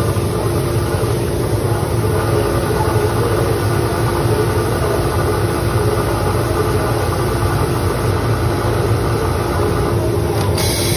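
Industrial automatic bottom-hem sewing machine running steadily as it sews a garment hem, a constant mechanical hum with a held tone. Near the end, a short burst of air hiss from its pneumatic system.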